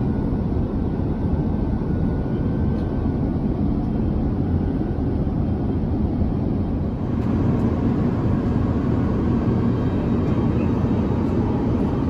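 Steady cabin noise inside an Airbus A350-900 airliner: an even low rumble and rush of air, a little louder after a cut about seven seconds in.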